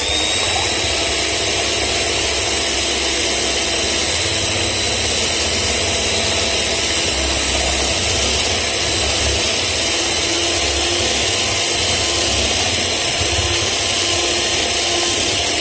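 Handheld electric mixer with twin beaters whipping four whole raw eggs in a glass bowl. Its whine rises as it comes up to speed at the very start, then it runs loud and steady with a high whine. It is a noisy mixer, one the owner says sounds like a tractor.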